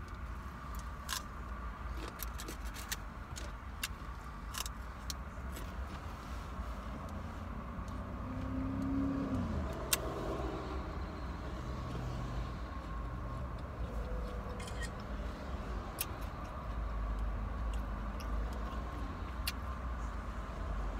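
Steady low rumble of a car cabin, with scattered light clicks and taps from a foam takeout container and plastic fork, most of them in the first few seconds. A brief tone falls in pitch about nine seconds in.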